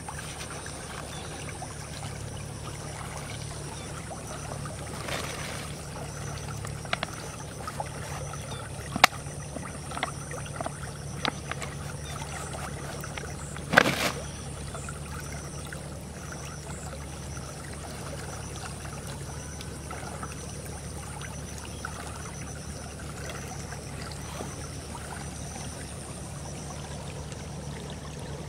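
Small canal stream flowing and trickling steadily, with a few sharp clicks and knocks, the loudest about 14 seconds in.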